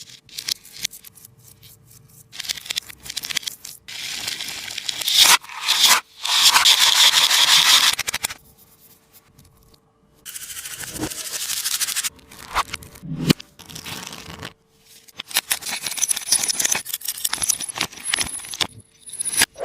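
Crinkly scraping and tearing sounds of a taba squishy, a tape-made squishy, being handled. They come in irregular bursts, the longest from about four to eight seconds in, with brief silent pauses between them.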